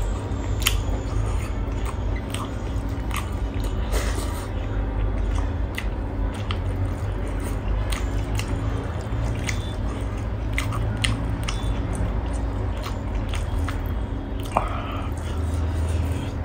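Close-up mouth sounds of chewing a mouthful of rice and fried buffalo meat eaten by hand, with frequent wet clicks of lips and tongue, over a low steady rumble.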